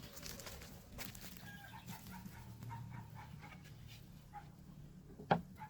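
Faint, short, high whimpers from an animal over a low hum, with one sharp click a little after five seconds in.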